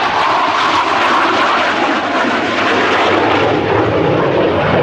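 A CF-18 Hornet's twin General Electric F404 turbofan jet engines roar loudly and steadily as the fighter flies its display, the roar deepening over the few seconds as it passes.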